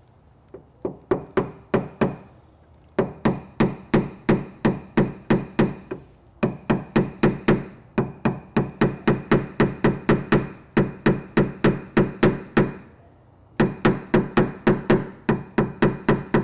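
Paintless dent repair knockdown tool struck with a small hammer against a car body panel, opening the dent back up. Quick, light, ringing taps come about three to four a second, in four runs with short pauses between them.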